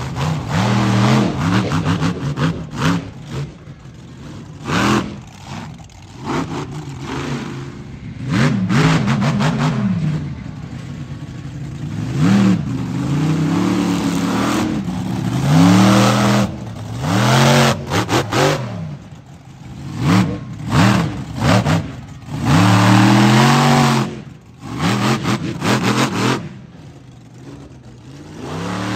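American Scout monster truck's engine revving hard in repeated throttle bursts, its pitch climbing and dropping with each burst, with quieter stretches between them.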